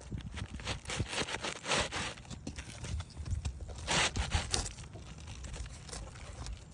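Asphalt roof shingles scraping and crunching in irregular short strokes as they are worked and slid against each other, with the loudest scrape about four seconds in.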